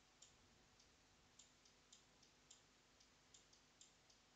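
Faint, irregular light clicks of a stylus tip tapping and sliding on a tablet screen during handwriting, about a dozen in all.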